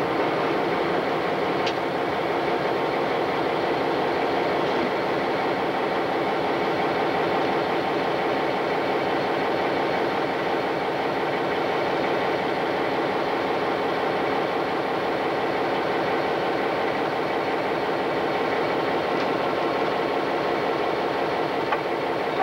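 Diesel locomotive running steadily as it rolls along the track, its engine noise mixed with the wheels on the rails, heard from right beside the hood.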